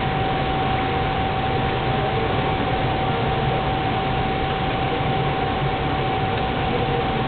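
Propane turkey-fryer burner running under the pot of oil: a steady, even roar with a constant high tone through it.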